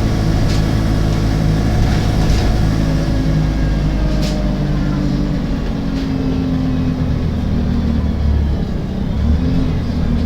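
Alexander Dennis Enviro 300 bus on a MAN chassis running with a steady diesel engine drone, and a sharp click that repeats about every two seconds, four times. The repeating click is the unexplained clicking noise this bus makes.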